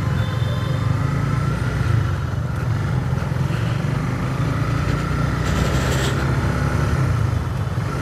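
Honda CBR150R's single-cylinder engine running steadily at low speed, heard from on board the motorcycle as it rolls along.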